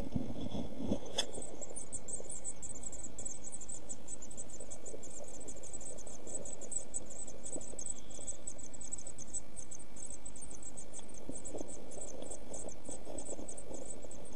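Week-old blue tit nestlings begging in the nest box: a rapid, continuous chorus of thin high-pitched calls that starts about a second in, after a few soft knocks of the adult arriving, and keeps going while the parent feeds them.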